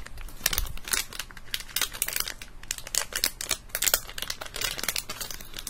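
Plastic packaging crinkling as it is handled and opened by hand, a dense, irregular run of sharp crackles.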